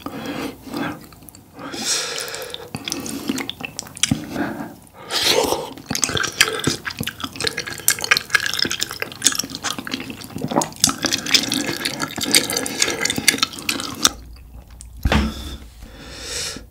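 Close-miked slurping and chewing of wide glass noodles coated in spicy tteokbokki sauce: wet, smacking mouth sounds with many small clicks, dying down near the end.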